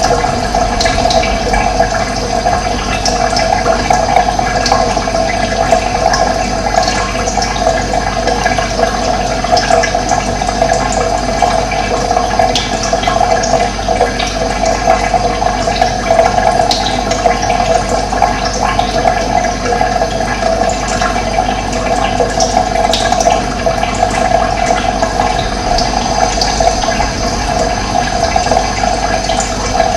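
Running water flowing steadily, a continuous rushing and gurgling stream.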